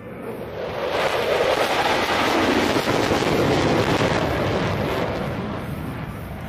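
Formation of U.S. Air Force Thunderbirds F-16 Fighting Falcon jets passing over: a jet roar that swells over about the first second, holds at its loudest for a few seconds, then slowly fades.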